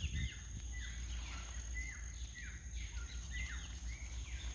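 A bird calling in a run of short, falling chirps, about two a second, over a steady low rumble.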